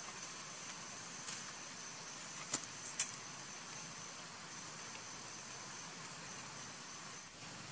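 Outdoor ambience: a thin, steady high-pitched insect buzz over a soft hiss, with two sharp clicks about two and a half and three seconds in.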